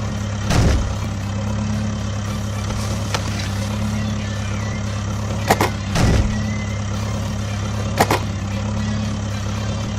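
Truck engine idling steadily, a low even hum, with a few short knocks scattered through it.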